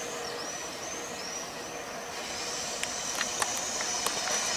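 SNCF BB 26000 electric locomotive approaching on a curve, its wheels squealing in short high rising-and-falling whines that merge into a steady high squeal about halfway through, with a few sharp clicks and the sound growing louder near the end.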